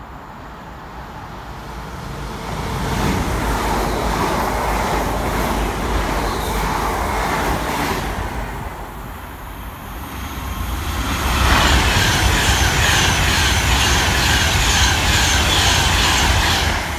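A London Northwestern Railway Class 350 electric unit runs through, swelling and fading, then an Avanti West Coast Class 390 Pendolino passes close, a louder rush of wheel noise with a steady rhythmic clatter that cuts off suddenly as its tail goes by.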